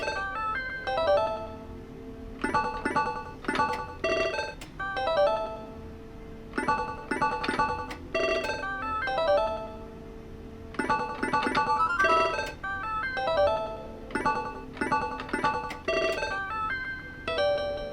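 Pachislot machine's electronic chime sounds: a phrase of bright, ringing tones that repeats about every four seconds over a steady low hum.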